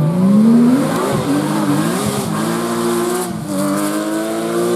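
Rally car engine accelerating hard, its note climbing and briefly dropping at each of several gear changes.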